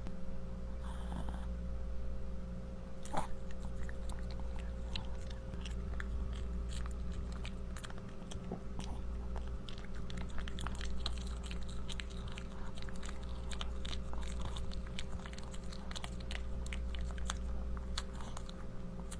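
A small chihuahua-type dog chewing and crunching food in many quick, close crunches that thicken about a third of the way in and go on until near the end, over a steady low hum.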